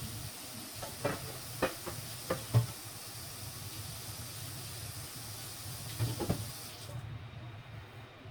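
Food frying in hot oil with a steady sizzle, and several short knocks of a utensil against the pan about a second in and again near the end; the sizzle cuts off suddenly near the end.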